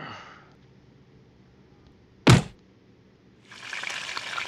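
A single sharp thunk a little past two seconds in, then deep-fryer oil starting to sizzle steadily about a second later.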